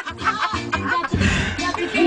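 Music playing on the car's stereo, heard inside the cabin.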